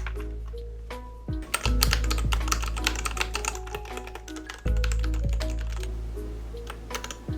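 Keys of a Royal Kludge RK84 mechanical keyboard clacking in a quick flurry of presses for about three seconds, starting about a second and a half in, with a few more presses near the end. Background music plays throughout.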